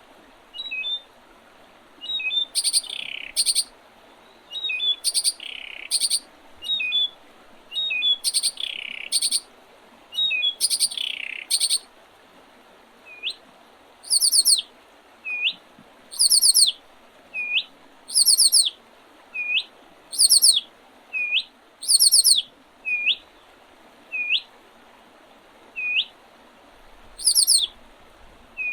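Spring songbirds singing. In the first half several birds give loud short phrases with falling sweeps. From about halfway, one bird repeats a short hooked note about once a second, alternating with a very high, thin rapid trill about every two seconds.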